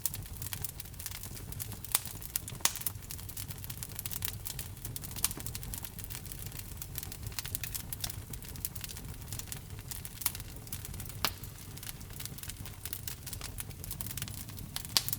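Wood fire crackling in a fireplace: a steady low rumble of burning under a constant patter of small crackles, with a few louder sharp pops scattered through.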